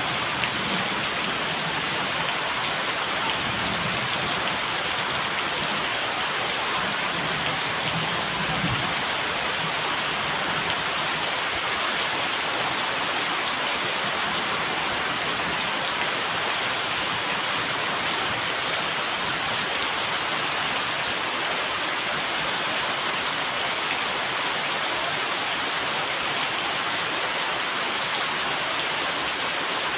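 Steady rain falling, an even hiss with no pauses. A low rumble sits under it for about the first nine seconds.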